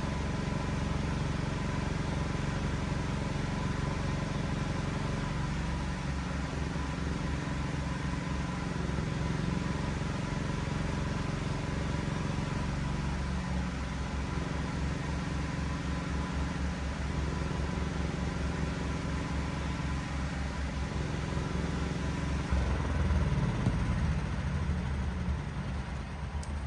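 Standby generator engine running steadily with a low, pulsing hum. Its sound shifts slightly about six seconds in and again near the middle, and it grows briefly louder a few seconds before the end, then eases off.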